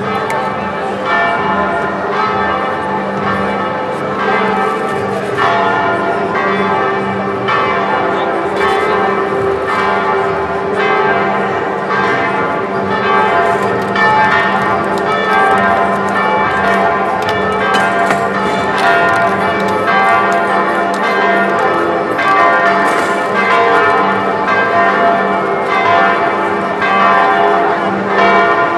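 Continuous bell ringing: many overlapping struck bell tones sounding without a break over a steady low hum.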